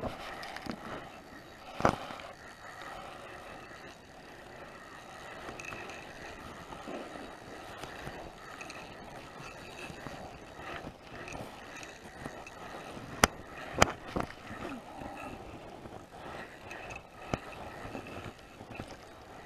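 Handling of an ice-fishing spinning rod and reel over low background noise, with a few sharp clicks and knocks: one about two seconds in, and three close together around thirteen to fourteen seconds in.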